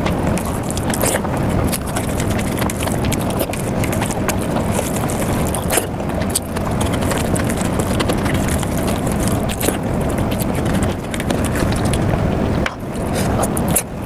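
Mukbang eating sounds sped up: a dense, continuous stream of wet chewing, smacking and squishing clicks as a person eats saucy rice and palak paneer by hand.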